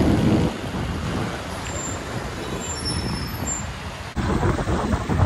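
Road traffic noise heard from a moving motorbike: a steady rush of engines and tyres. It drops abruptly to a quieter hum about half a second in and jumps louder again near the end.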